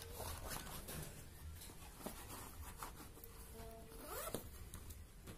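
Zipper of a nylon gun bag being pulled open by hand, faint, with a louder pull about four seconds in.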